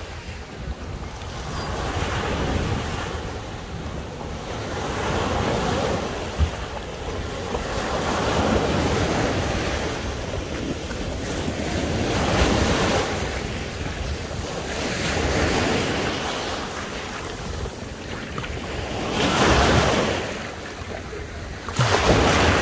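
Sea waves washing onto the shore, each wash swelling and fading every few seconds, the loudest near the end. Wind rumbles on the microphone throughout.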